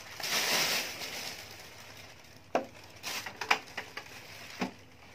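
Plastic bag rustling, then a handful of sharp knocks and taps as a wooden hi-fi speaker cabinet is handled and set down on a tile floor.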